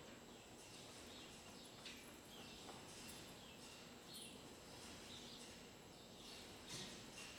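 Faint chirping of small birds: a string of short, downward-sweeping chirps over quiet room tone.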